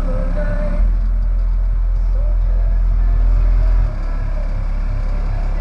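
Bass-boosted song played through a car audio system with DD Audio 12-inch subwoofers on a CT Sounds 2500-watt amp; sustained deep bass notes dominate, stepping up louder about a second in and easing back near four seconds.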